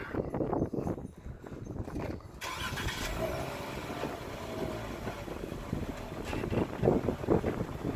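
A Jeep's engine running at low speed as the vehicle idles and creeps up to the frame on asphalt. The sound thickens into a steady rush about two and a half seconds in.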